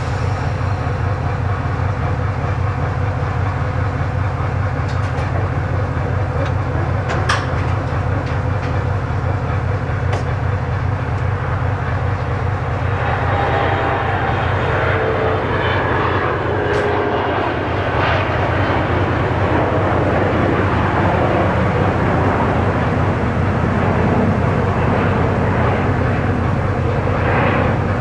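Soviet-built two-section diesel freight locomotive standing with its engine idling, a steady low drone. There are a few sharp clicks, and a rougher rushing sound joins about halfway through.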